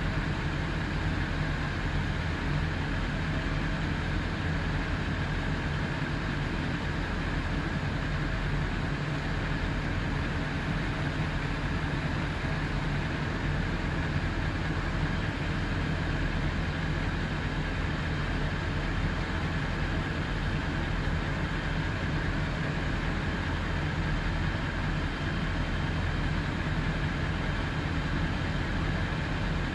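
Fire truck engines running steadily at a structure fire, a low, even engine hum with a steady hiss over it.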